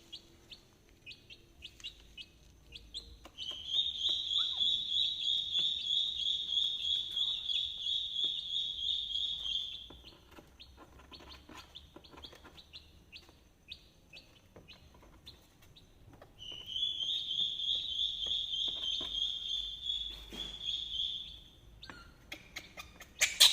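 Poultry chicks peeping: scattered single high peeps, broken twice by long runs of fast, unbroken shrill peeping, one starting about three seconds in and lasting some six seconds, the other starting about sixteen seconds in and lasting about five.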